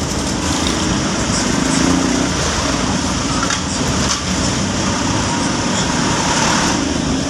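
Steady engine and road noise of a vehicle driving along a city street.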